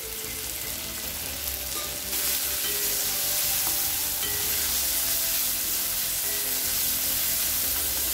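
Chopped carrots and beans sizzling in hot oil with onion, tomato and spices in a kadai, stirred with a spatula. The sizzle gets louder about two seconds in and then holds steady.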